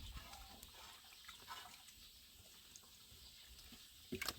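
Near silence: faint background noise with a few soft scattered sounds, and a brief sharp knock just before the end.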